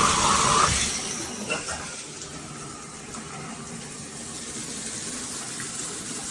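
Water spraying from a 6-inch rain shower head just after it is turned on: a loud rushing hiss that eases about a second in and settles to a steady, quieter spray.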